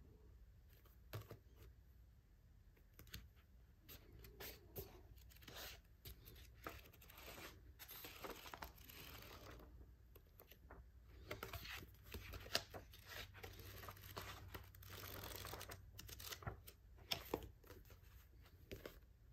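Faint rustling and soft taps of a paperback manga volume being handled, its pages turned and flicked, with longer rustles about halfway through and again past the middle.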